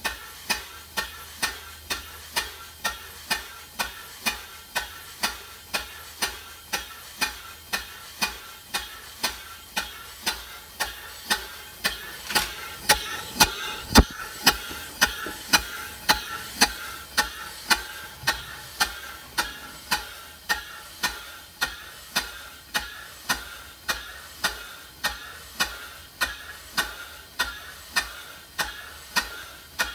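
Early vertical steam engine running on compressed air: a steady beat of sharp exhaust beats, a little under two a second, over a constant hiss of air. The hiss grows louder for a few seconds near the middle, with one sharper knock about halfway through.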